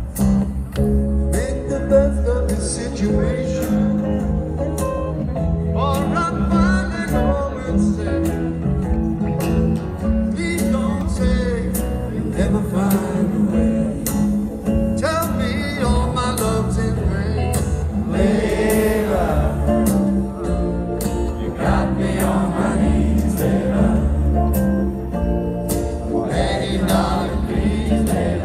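Live band music: acoustic guitar with a male lead vocal and backing singers, over a steady bass and drum beat, as heard from the audience.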